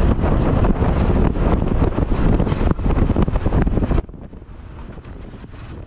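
Wind buffeting the microphone on a moving motor scooter, with road and traffic noise beneath. The wind noise drops off suddenly about four seconds in, leaving a quieter steady traffic hum.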